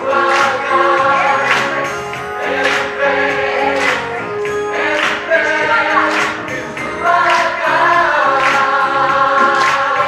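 Gospel choir singing full-voiced, with hand claps on the beat about once a second.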